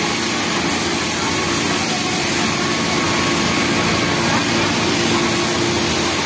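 Steady din of industrial sewing machines running, among them a Kansai multi-needle machine stitching a knit waistband.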